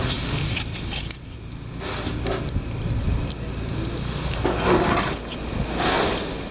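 Blizzard wind buffeting the microphone: a constant low rumble with crackling, and two louder rushes of noise near the end.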